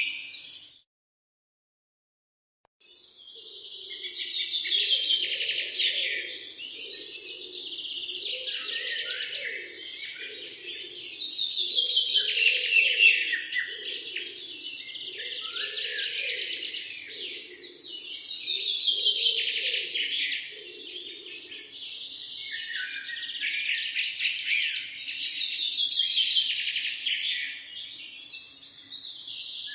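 Wild songbirds singing in a dense chorus, with a loud trilling phrase that falls in pitch and comes back every six or seven seconds. A fainter, lower pulsing sound runs underneath. The sound cuts out for about two seconds just after the start.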